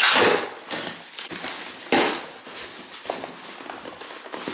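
Hands handling a mailed shipping box and working at its packing to get it open: scraping and tearing noises, with a loud burst right at the start and another about two seconds in.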